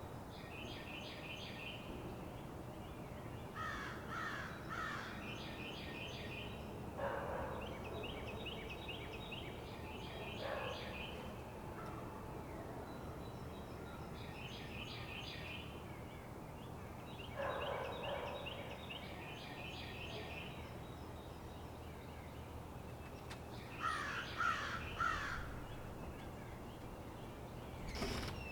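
Woodland birds singing: quick chirping phrases repeated every few seconds, with a few lower, rougher calls between them. A steady low hum of distant highway traffic runs underneath. A couple of sharp clicks come right at the end.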